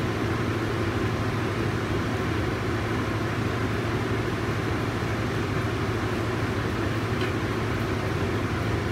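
Steady low hum with an even hiss, holding unchanged throughout.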